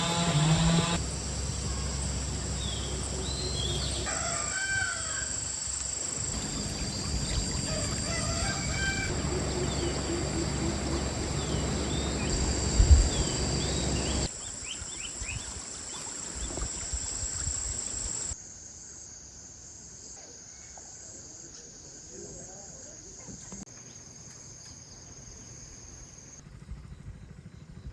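A rooster crowing and small birds chirping over a steady outdoor background hum, in short segments with abrupt cuts; the background drops to a quieter hush in the later part.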